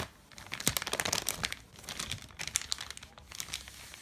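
Plastic packaging crinkling and crackling in quick irregular rustles as the TV's accessories, the remote controls, are handled and unwrapped.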